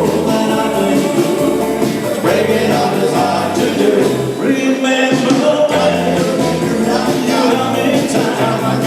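Live band playing fifties-style rock and roll, with some singing over it.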